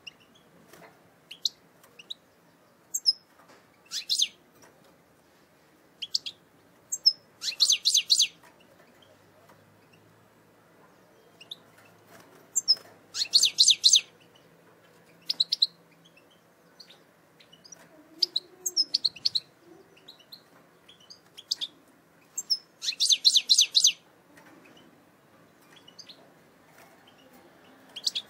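Caged European goldfinch of the eastern Algerian strain singing in short phrases. Scattered single high chirps alternate with three bursts of rapid twittering notes, each about a second long.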